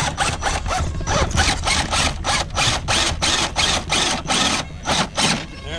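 Electric RC scale crawler's motor and gear drivetrain working as the truck climbs a rock, a quick ratcheting train of pulses about four a second over a low steady hum, which stops just before the end.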